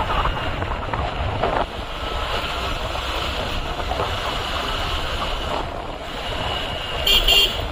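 Wind buffeting the microphone over the motorcycle's engine and road noise while riding at steady speed. Two short high beeps come close together near the end.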